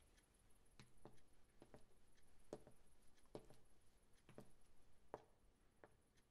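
Faint footsteps of a woman in high heels walking on a hard floor, sharp heel clicks a little under a second apart, growing fainter toward the end.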